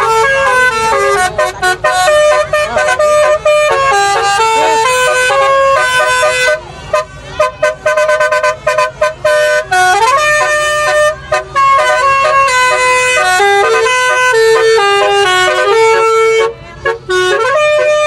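A car's basuri telolet horn playing a tune: loud, clear horn notes stepping up and down in pitch, with a few upward slides between notes and a run of short, choppy notes partway through.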